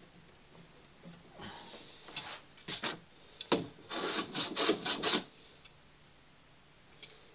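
Small block plane shaving a scarf bevel into the end of a plywood plank: a run of short strokes from about a second in, coming quicker and louder for the last second before stopping about five seconds in.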